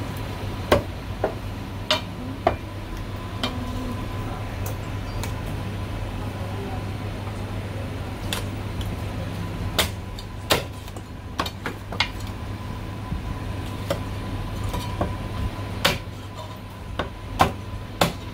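Meat cleaver chopping through marinated goose onto a chopping block: a dozen or so irregular sharp knocks, with a lull from about four to eight seconds in, over a steady low hum.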